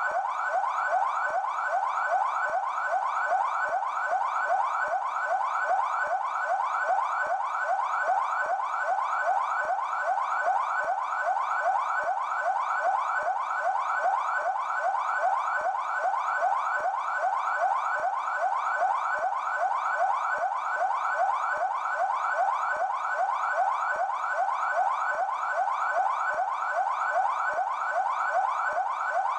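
São Paulo Military Police car siren on its yelp tone: a fast, unbroken run of rising sweeps, several a second, at a constant rate and level.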